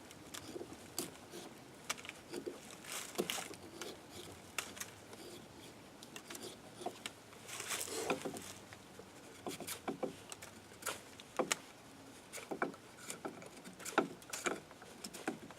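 Bark River Mini Bushcrafter fixed-blade knife shaving and stripping bark off a stick, as a run of short, irregular scraping strokes and light clicks.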